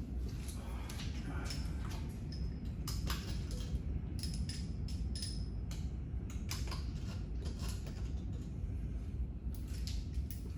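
Scattered small clicks, scrapes and rattles of hand work on an open engine block with its cylinder head off, as the cylinders are cleaned out after a blown head gasket, over a steady low hum.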